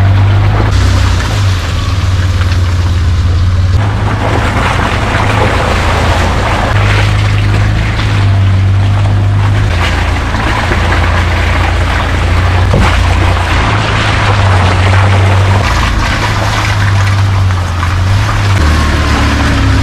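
Toyota Land Cruiser 80 series (FZJ80) driving off-road, its 4.5-litre straight-six running under a steady heavy rumble, with water splashing and sloshing around the truck.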